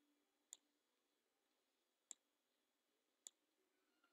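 Computer mouse button clicking, three faint single clicks about a second and a half apart, as tables are dragged and dropped onto a designer surface; otherwise near silence.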